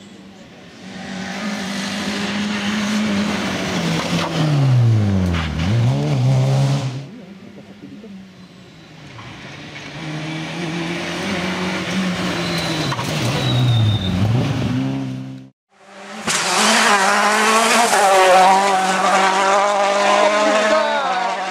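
Rally car engines passing through a bend, twice. Each time the engine note drops as the car brakes and downshifts for the corner, then climbs again as it accelerates away; the second car is a Peugeot 106. After a brief dropout, a louder engine sound with a wavering pitch fills the last few seconds.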